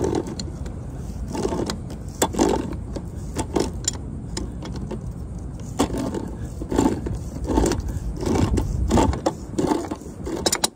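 Auto-cut tubing cutter being ratcheted around a copper water pipe with channel-lock pliers, cutting it: irregular metallic clicks and scrapes with each stroke, about one or two a second, as the wheel bites into the tight copper.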